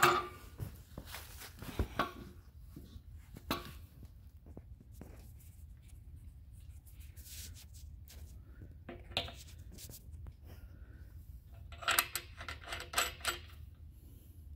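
Scattered metal clinks and knocks of tools and fittings being handled, with a quick run of clinks about twelve seconds in, over a faint steady low hum.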